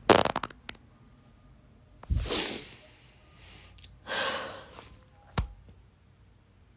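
A person's breathing: a short sputtering rasp at the start, then two loud breathy exhales about two seconds apart, and a sharp click near the end.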